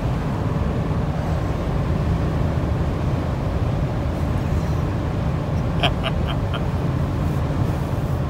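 Steady low road and engine rumble inside a moving van's cabin at highway speed. About six seconds in come four quick short sounds in a row.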